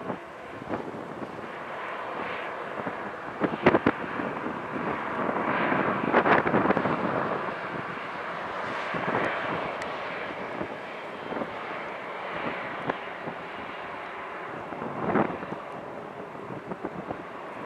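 Jet airliner engines running as the plane taxis: a steady rushing noise that swells about six seconds in and eases off, with a few short thumps, the sharpest about four seconds in.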